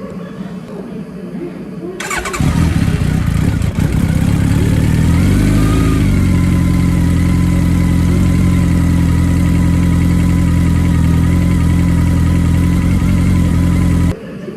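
Honda CB1300 Super Four's inline-four engine cranked on the starter, catching about two seconds in, rising briefly in pitch and then idling steadily, before being switched off abruptly near the end. It is run just after an oil and filter change so that fresh oil fills the new filter and the level settles.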